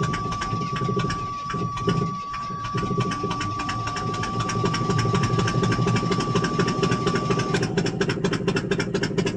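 1985 Chevrolet Suburban's gasoline engine running roughly after a cold start, not firing on all its cylinders. A steady high-pitched dashboard warning buzzer sounds over it and stops about three-quarters of the way through. The engine then settles into a fast, even pulsing beat.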